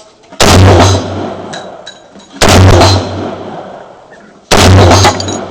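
Three shots from an LRB M14-type semi-automatic rifle in .308, about two seconds apart, each a loud crack that trails off over about a second.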